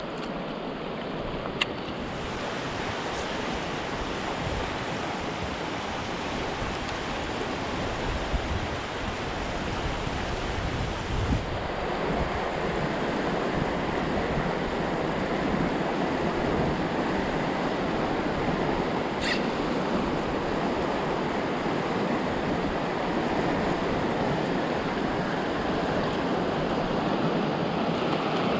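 Mountain stream water rushing steadily over rocks, a little louder from about 12 seconds in, with a single sharp tick about 19 seconds in.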